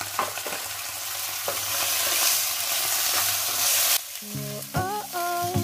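Tofu cubes sizzling in a nonstick frying pan with dark soy sauce while a spatula stirs and scrapes them, with scattered light clicks. The sizzle cuts off about four seconds in and background music notes follow.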